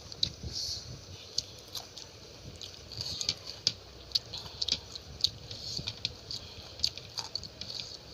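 Close-up mouth sounds of someone eating chicken curry with rice: wet chewing and lip-smacking, a quick irregular run of small clicks and squelches.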